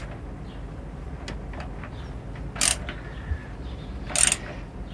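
Ratchet wrench clicking in short strokes as the bolt of a handlebar clamp mount is tightened: a few faint ticks, then two short rasping strokes about a second and a half apart.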